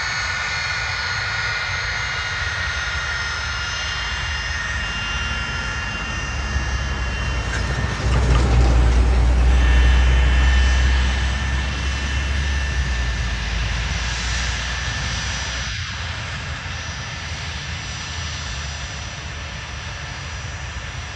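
Jet airliner engines running, a steady high turbine whine over a low rumble. The rumble swells about eight seconds in, then slowly fades.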